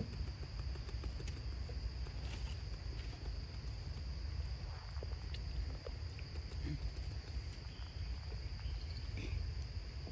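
Steady high-pitched insect drone over a constant low rumble, with a few faint short sounds scattered through it.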